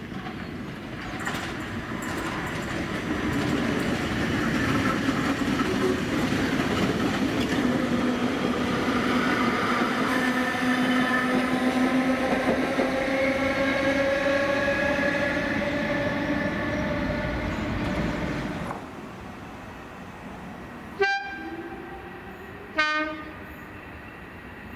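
1938 Stock tube train running on the rails, its motors whining in several tones that slowly rise in pitch; the sound stops abruptly about nineteen seconds in. Near the end come two short toots of the train's whistle, about two seconds apart.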